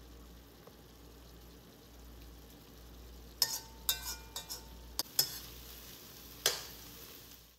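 Metal spoon stirring cabbage and potatoes in a stainless steel pan, with a run of sharp clinks against the pan's side starting about halfway through, several ringing briefly. Faint sizzling of the vegetables cooking on high heat as the water dries off.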